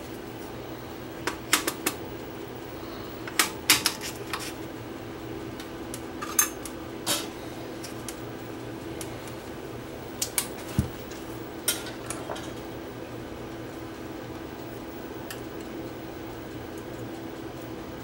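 Light clicks and clacks of hands handling a Sony CV2000 reel-to-reel video recorder's tape path and controls, in several short clusters over a steady low hum.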